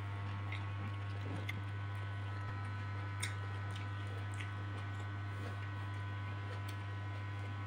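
A person chewing a mouthful of instant noodles and tomato close to a clip-on microphone: a few scattered wet mouth clicks and smacks, the sharpest about three seconds in. Over it runs a steady low hum.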